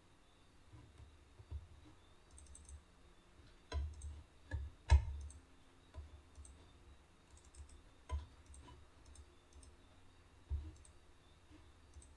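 Computer mouse and keyboard clicks while text is copied and pasted into a web form: scattered short sharp clicks, a quick cluster of them just before the middle with the loudest about five seconds in, then a few single clicks.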